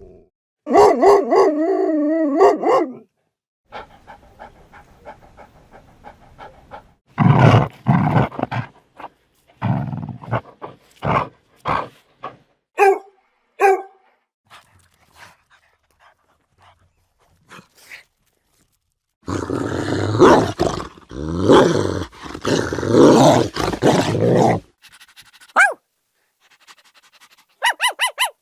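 A run of dog sound effects separated by short gaps. A wavering howl-like call comes near the start, then barks, a long stretch of rough snarling and growling in the second half, and quick yips near the end.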